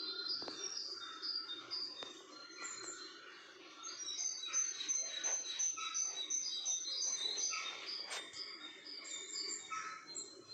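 Small birds chirping and twittering in quick series of short high notes, busiest and loudest in the middle, over a steady low hum.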